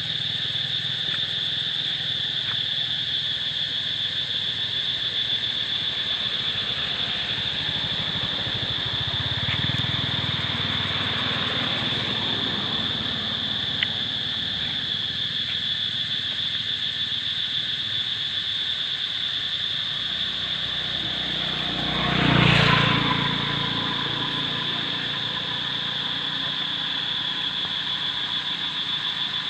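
A steady, high-pitched insect drone, with a vehicle passing by about three quarters of the way through.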